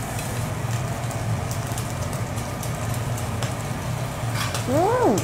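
Steady hiss and crackle of food sizzling on a teppanyaki griddle over a low steady hum. Near the end a person gives a short 'mm' that rises and falls.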